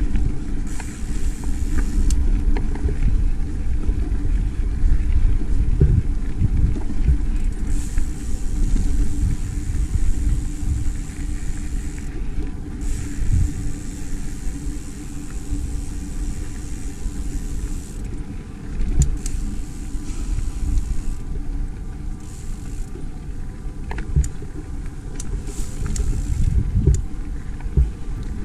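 Mountain bike rolling along a dirt singletrack: a steady low rumble of tyres on the trail and wind over the microphone, with scattered short rattles and knocks from the bike over rough ground.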